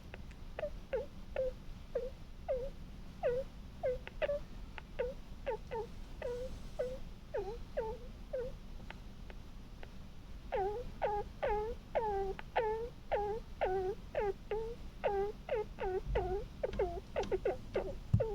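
A sleeping pet's squeaky snoring: a long run of short, high whistling squeaks, each dipping then rising in pitch, at about two or three a second. About ten seconds in they get louder and quicker, about four a second.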